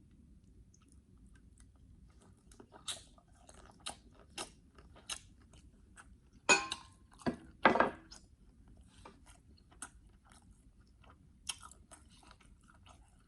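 A person chewing and eating seafood close to the microphone: wet mouth clicks and crackles, with a cluster of three louder crunches between about six and eight seconds in.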